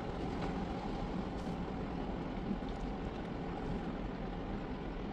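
Jeep driving, heard from inside the cabin: a steady rumble of engine and road noise.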